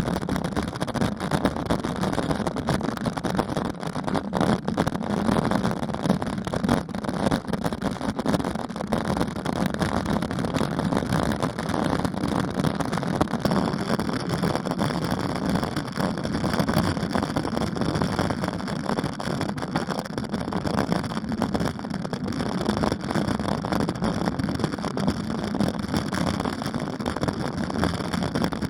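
Wind rumble and tyre and road noise on the microphone of a camera carried on a bicycle climbing a hill road, an even, unbroken noise. A steady high hiss joins about halfway through.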